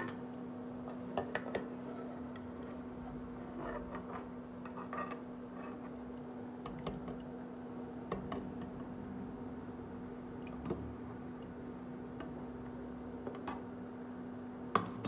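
A steel perforated skimmer gives scattered light clicks and taps against the kadhai and the steel plate as fried onions are lifted out of the oil. Under them runs a steady low hum, typical of an induction cooktop running.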